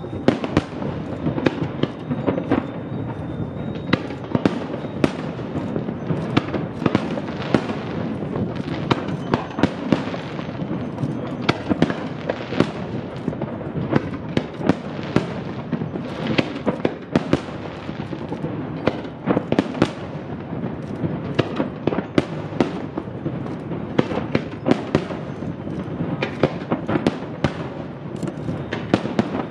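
Aerial fireworks display: shells bursting in quick succession, a few sharp bangs a second over a continuous rumble and crackle.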